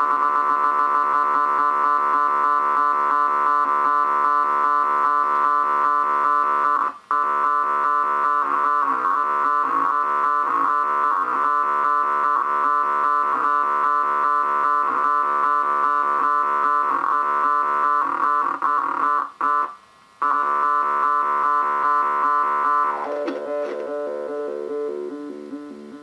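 Homemade analogue Weird Sound Generator synthesizer making a buzzy electronic drone with many overtones and a fast fluttering pulse. It cuts out briefly about 7 seconds in and again around 19 seconds in; near the end the pitch drops and the sound fades down.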